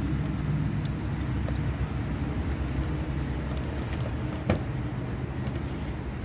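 Steady low motor hum running throughout, with a single sharp click about four and a half seconds in.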